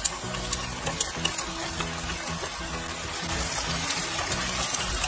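Shishito peppers frying in oil and soy-based sauce in a nonstick pan over medium heat, a steady sizzle as they are stir-fried with a wooden spatula. A few sharp pops and clicks come through the sizzle.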